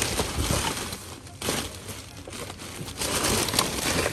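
Plastic bags and packaging rustling and crinkling as someone rummages and wades through a full dumpster, in several surges with a few sharp clicks.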